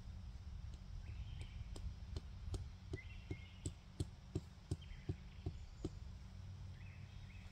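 A metal tent stake being hammered into the ground: a run of regular sharp strikes, about three a second, that starts about a second in and stops about six seconds in. Birds chirp faintly in the background.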